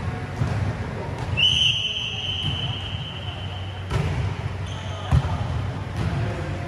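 Volleyball being struck and bouncing on an indoor court, a few sharp smacks that echo in the hall. A steady high tone sounds for about two and a half seconds in the middle, over the low hum of the hall's fans.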